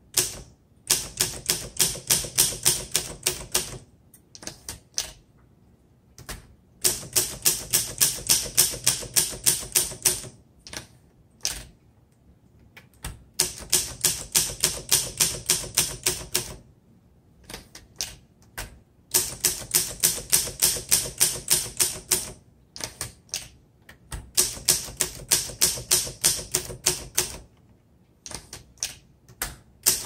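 Keys of a 1955 Olympia SM3 manual portable typewriter striking the paper in quick runs of several strokes a second, broken every few seconds by short pauses with a stray single stroke.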